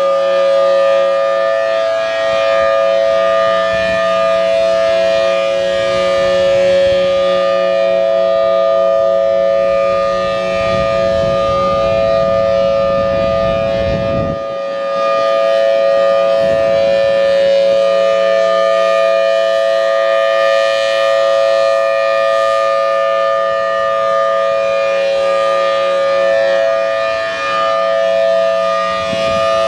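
Federal Signal Thunderbolt 1003 outdoor warning siren sounding a steady full alert at full pitch. Its 5/6-port rotor, driven by a 4M blower, gives a loud two-note chord. The sound swells and fades slightly as the rotating horn turns toward and away from the listener.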